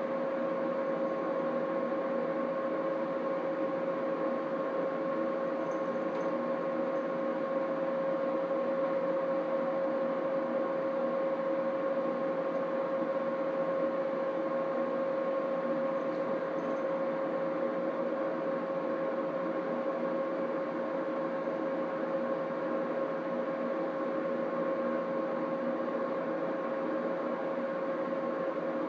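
Steady machine hum with a constant mid-pitched tone over an even rushing noise, like an appliance or fan motor running.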